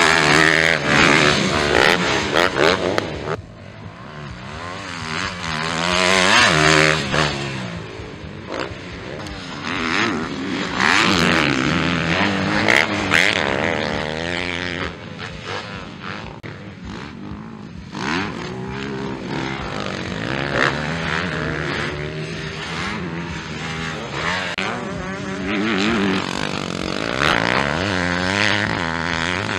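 MX2-class 250cc four-stroke motocross bikes racing past on a dirt track, engines revving hard and falling away as riders work the throttle over jumps and through turns. The loudest passes come near the start, about six seconds in, and again around ten to thirteen seconds.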